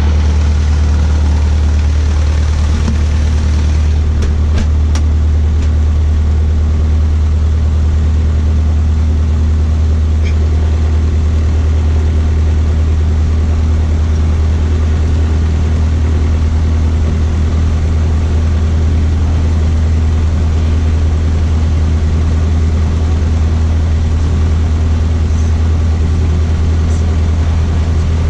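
Cessna 152's four-cylinder air-cooled Lycoming O-235 engine and propeller running steadily at low power, heard from inside the cockpit as a loud, even low drone.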